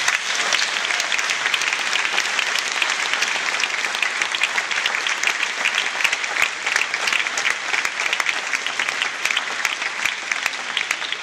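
Audience applauding: dense, sustained clapping from many hands that thins out slightly near the end.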